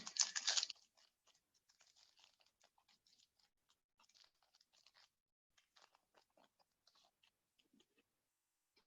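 Faint crinkling and crackling of a foil trading-card pack wrapper being opened and handled: many short, irregular crackles.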